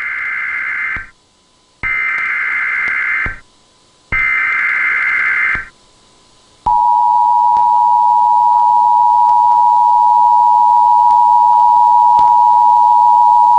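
Emergency Alert System broadcast opening: three short bursts of SAME header data noise about a second apart, then the steady two-tone EAS attention signal comes in about seven seconds in and holds.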